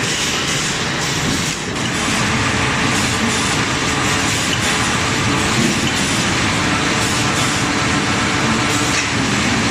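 Spindleless veneer peeling lathe running, its driven rollers turning a eucalyptus log against the knife to peel veneer: a loud, steady machine noise with a brief dip about a second and a half in.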